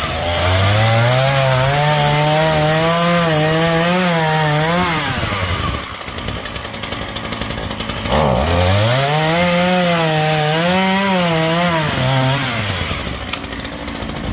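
Ryobi 8-inch chainsaw revving up and cutting through a split log on a freshly sharpened chain, its pitch wavering as it works under load. It drops away about five seconds in, revs up and cuts again for about four seconds, then falls back and dies away near the end.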